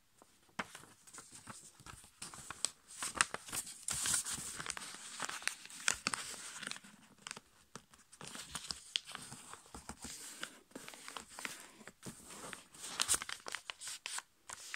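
A sheet of A5 copy paper being folded by hand: irregular rustling and crinkling, with many sharp crackles as folds are pressed and creased flat, starting about half a second in.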